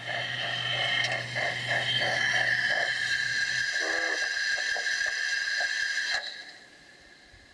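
Garden-railway model steam locomotive passing with a steady beat of chuffs, about three a second, over a low hum. Its freight wagons then roll by on the track with a steady high-pitched whine that cuts off about six seconds in.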